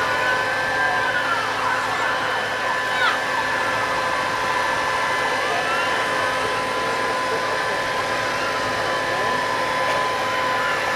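Fire service aerial ladder platform running as its boom is raised: the truck's engine and hydraulics give a steady whine of several constant tones over an even engine noise.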